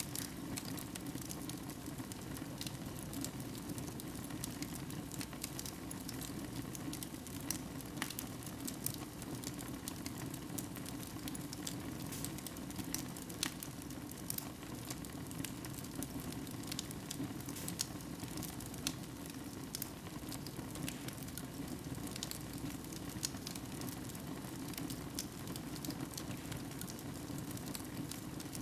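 Wood fire burning in a fireplace: a steady low hiss of flame with frequent sharp crackles and pops from the burning logs.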